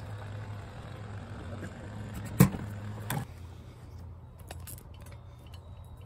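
A steady low hum with a sharp knock about two and a half seconds in and a lighter knock just after three seconds; the hum weakens after the second knock.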